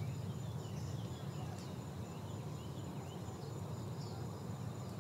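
Hillside woodland ambience: a low steady rumble with short high chirps scattered throughout and a thin, steady, high-pitched insect whine.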